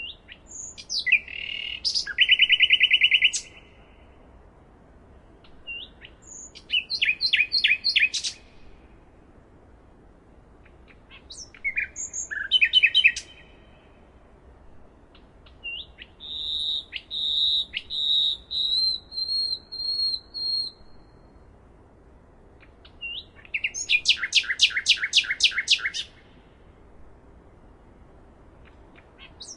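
Nightingale singing: five separate phrases with pauses of a few seconds between them, made of rapid repeated notes and trills. One phrase is a slow series of about eight whistled notes, and the last is a fast rattling trill.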